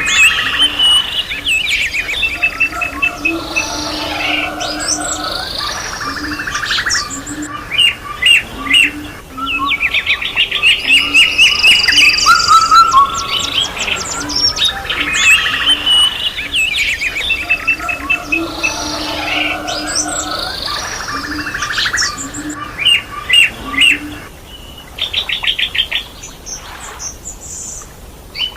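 A chorus of several songbirds singing at once: overlapping chirps, fast trills and quickly repeated notes, thinning out to fewer calls near the end.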